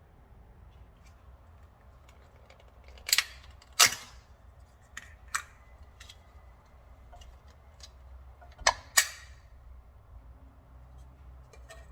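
Sharp clicks and knocks of objects being handled and set down: a loud pair about three to four seconds in, two lighter clicks a little later, and another loud pair close together near nine seconds, with faint ticks between.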